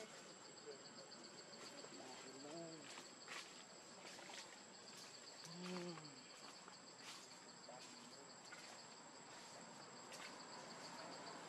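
Faint, steady chirring of insects: a high pulsing trill with a steady higher tone above it. Two short, faint pitched calls rise and fall, about two and a half and six seconds in.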